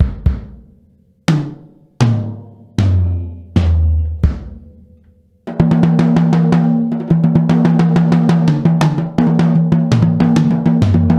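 Yamaha Beech Custom drum kit being played: single strokes on a low drum about every three-quarters of a second, each ringing out and dying away. From about five and a half seconds, a fast continuous run of tom and snare strokes with cymbals.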